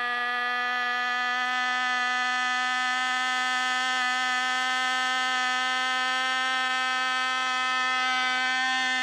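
RC model airplane engine running flat out at full throttle, a loud, steady, high-pitched buzz that holds one pitch.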